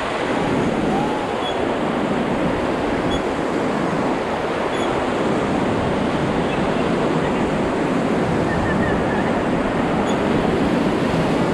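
Whitewater rapids rushing steadily around a river raft, a continuous loud wash of water.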